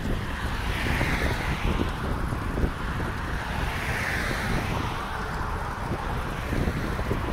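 Road traffic passing, its tyre noise swelling twice, about a second in and again around four seconds, over a steady rumble of wind on the microphone.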